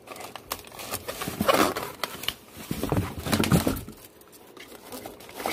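Plastic shrink wrap on a multipack of soup cups crinkling and rustling as it is gripped and moved in a cardboard box, busiest for the first four seconds and quieter after.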